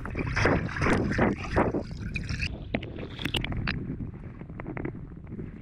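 Water sloshing and rushing past a camera held underwater by a swimmer, with a few surges of water from the strokes in the first two seconds. After that the sound turns muffled: a low rumble with small clicks and bubbles.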